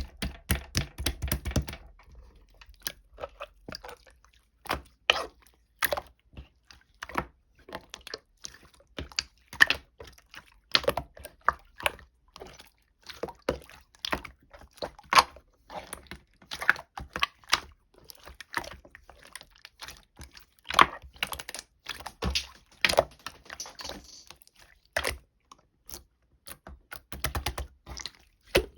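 A long run of irregular sharp clicks and taps, several a second, some much louder than others.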